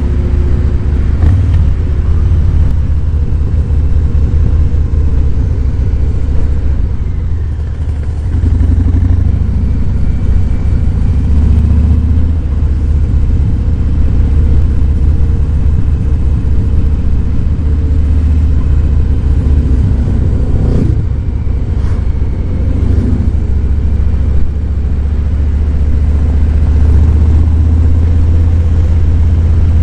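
Harley-Davidson Fat Boy 107's Milwaukee-Eight 107 V-twin running while the bike is ridden, a deep steady rumble that eases off and picks up again a couple of times.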